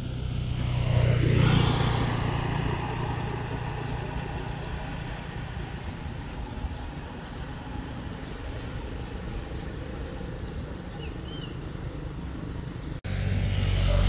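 A road vehicle passing close by, swelling to its loudest about a second and a half in and falling in pitch as it goes. Steady open-air road background with a low rumble follows.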